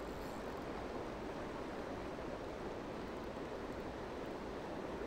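Steady rushing of a fast-flowing river running over rocks, with no distinct splashes or reel clicks standing out.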